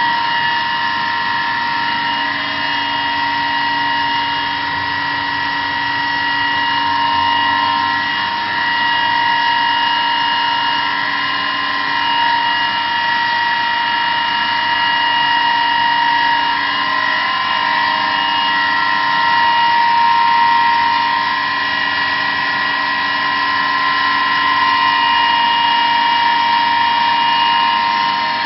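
A motor-driven machine running steadily, with an even high whine over a hiss.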